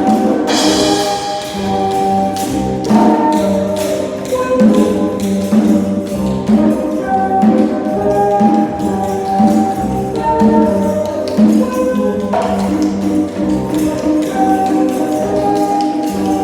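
Music from a tapping percussion group: a fast, steady run of taps and jingles under held melodic notes that change every second or so.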